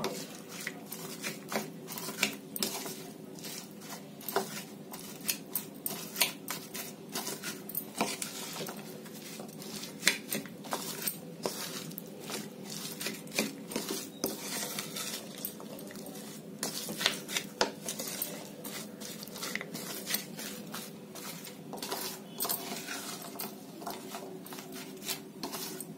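Wooden spatula stirring a chunky mix of raw karonda pickle in a bowl, with frequent clicks and scrapes as it knocks against the bowl. A faint steady hum runs underneath.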